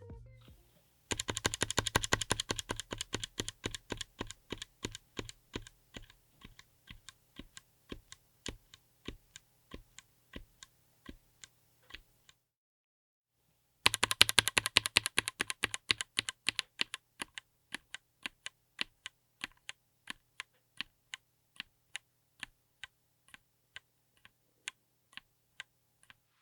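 Mechanical keyboard with Outemu Cream Pink linear switches, on an FR4 plate in an aluminium case, being typed on. There are two runs of keystrokes, each starting as quick, dense typing and thinning to single key presses about two a second, with a pause of about a second and a half between them.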